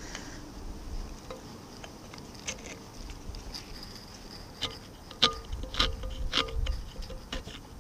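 Scattered light clicks and knocks as a rusty cast-iron part is handled and turned over in a tray, busier a little past the middle, over a faint steady buzz.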